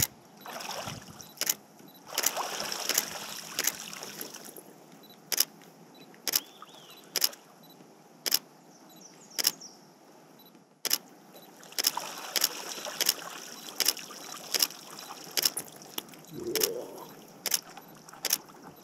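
A series of sharp single clicks, roughly one every half second to one second at an uneven pace, typical of a camera shutter being fired again and again, over a faint hiss of wind and water.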